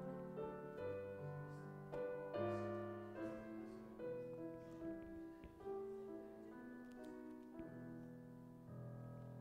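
Slow piano music, notes and chords changing about once or twice a second, with a chord held near the end.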